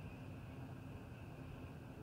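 Quiet room tone: a steady low hiss with a faint low rumble, and no distinct strokes or knocks.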